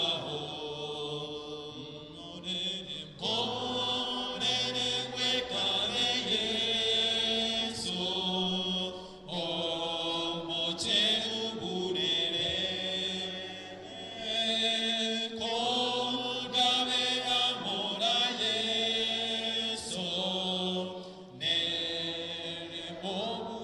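A small group singing a slow hymn in unison, unaccompanied, amplified through handheld microphones and a PA speaker, in long held phrases with short breaks between them.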